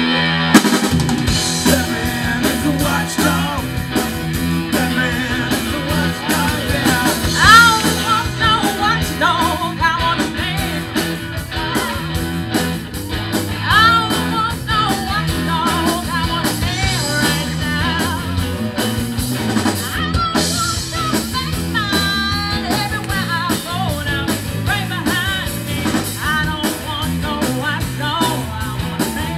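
A live rhythm-and-blues band plays, with female lead vocals over electric guitars, electric bass and drum kit. The full band comes in at once at the start.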